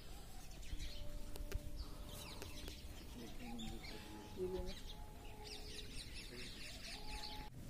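Small birds chirping in several short clusters of high twitters, with faint voices underneath.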